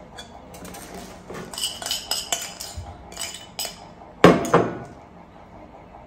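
Metal spoon scraping and clinking against a ceramic bowl while scooping chocolate coating, followed about four seconds in by two loud knocks as the crockery is set down on a wooden table.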